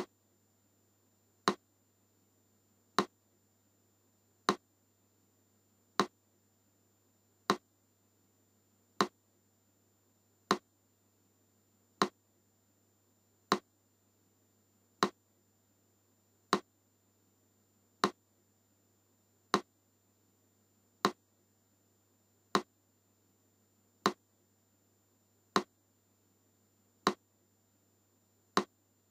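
Metronome ticking slowly and evenly, one sharp click about every second and a half (about 40 beats a minute).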